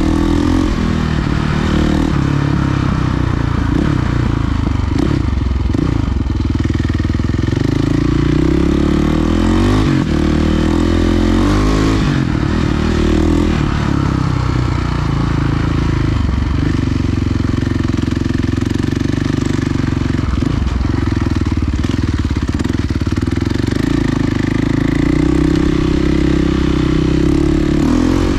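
Enduro motorcycle engine running under way, its revs rising and falling again and again as the throttle is opened and closed.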